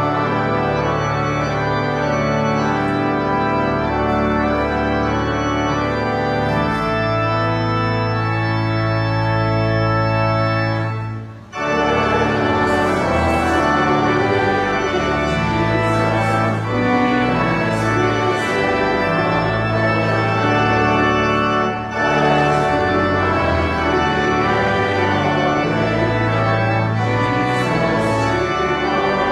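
Church organ playing slow music of held chords, with a brief pause about eleven seconds in.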